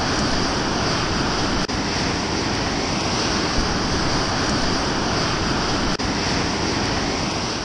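Whitewater rapids rushing steadily, the sound briefly cut off twice.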